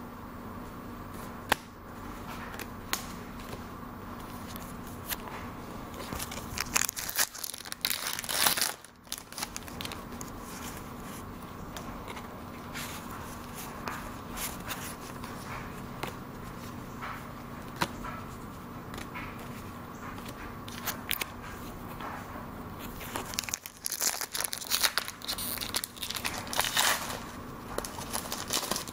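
Foil Pokémon TCG booster pack wrappers crinkling and tearing open in two spells, about seven seconds in and again from about twenty-three seconds, with light clicks of trading cards being handled in between. A steady hum runs underneath.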